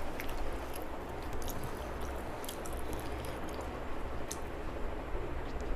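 Close-up eating sounds: soft wet chewing with small scattered mouth clicks, over a steady low hum.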